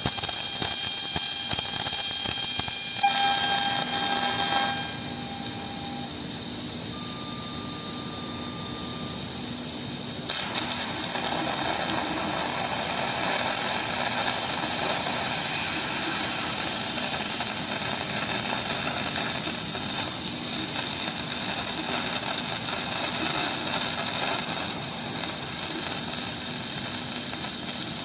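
6000 W fiber laser cutting head cutting 25 mm carbon steel: a steady loud hiss of the gas jet and the cut, with a few thin high tones over it in the first few seconds. The hiss steps up in loudness suddenly about ten seconds in.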